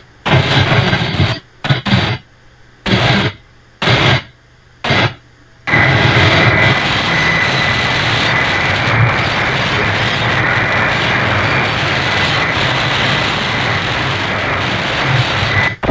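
Shortwave AM receiver audio from a software-defined radio scanning memory channels: about five short bursts of static, each cut off by the muting between channel steps, then a steady rush of static with a thin, steady high-pitched whistle once the scanner holds on one frequency.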